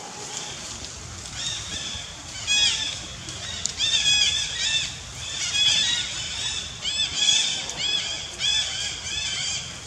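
Young long-tailed macaque screaming in distress: a rapid run of short, high-pitched squeals, each rising and falling, one after another from about a second in.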